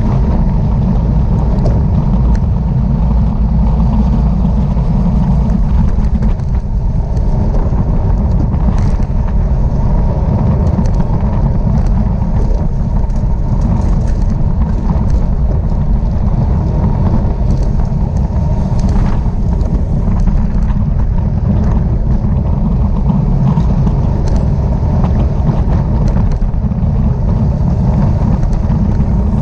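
Steady, loud wind buffeting on the microphone of a camera riding along with a bicycle in a road race, with rolling road noise underneath and scattered faint clicks.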